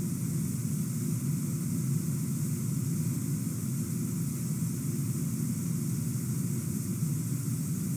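A steady, unchanging low rumble with a faint high hiss above it.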